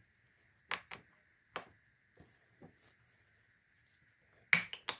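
Sharp metallic clicks and taps as a thin metal shield disc is worked into a ball bearing, pressed down at one edge and pried up at the other with a small pick. A few scattered clicks come first, then a quick cluster near the end.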